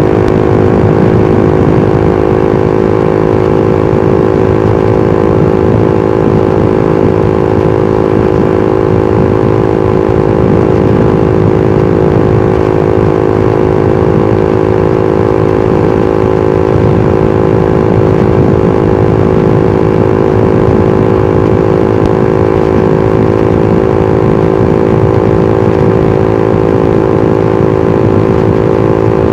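Suzuki GSX-R150's single-cylinder four-stroke engine and exhaust running at a steady, unchanging engine speed while the motorcycle cruises on the road.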